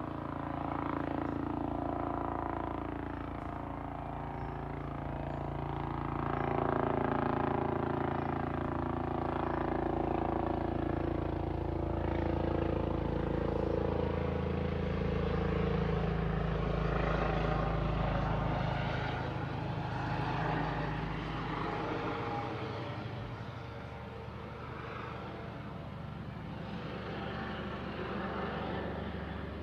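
Police helicopter flying overhead: a steady rotor and turbine drone whose pitch slides down as it passes, louder through the middle and easing off near the end.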